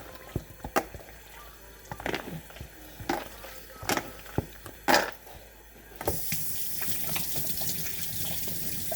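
A few separate wet squelches and clicks as raw chicken is mixed by hand in a bowl. About six seconds in, a kitchen tap is turned on and runs steadily.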